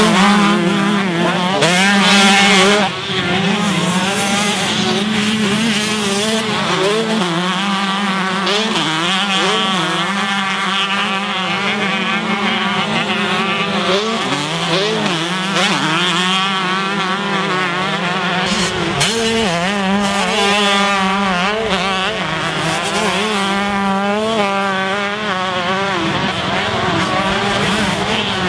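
Several two-stroke motocross bikes racing, their engines revving up and down through the gears as they pass, several at once and overlapping.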